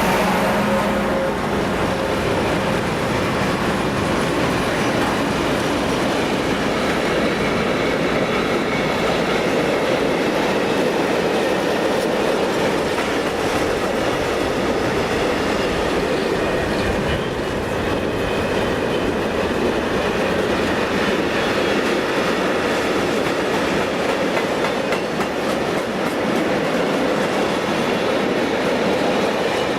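A freight train's wagons rolling past on the rails, a loud steady run of wheel and wagon noise after the locomotives' engine sound fades in the first second or so.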